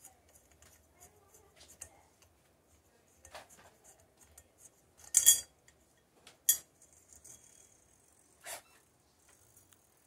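Small metal clicks and clinks as the fan light switch is unscrewed from the fan's switch housing. There are a few faint scrapes, and two sharper clinks about five and six and a half seconds in, the first with a brief metallic ring.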